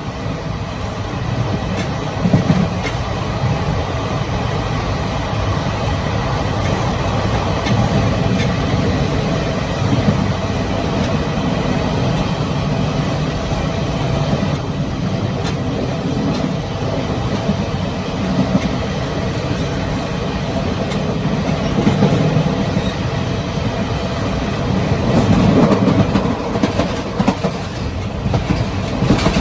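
Steady rumble and rattle inside the gangway between two coaches of a Taiwan Railway Chu-Kuang express train in motion, with wheels clacking over the rails and occasional sharper knocks, a little louder near the end.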